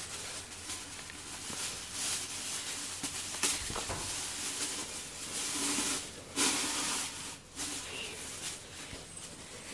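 Grooming brush stroking a cat's fur: a soft, scratchy rustling that swells and fades with each stroke.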